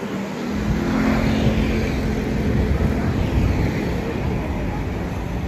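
Old Alexandria electric tram running past close by, a steady rumble of the tram on its rails that builds about half a second in, with a hum held over the first couple of seconds.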